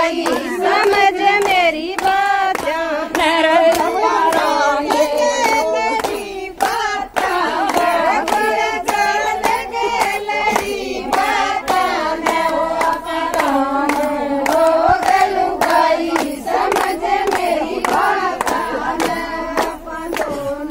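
Women singing a Haryanvi folk song with steady rhythmic hand-clapping keeping the beat.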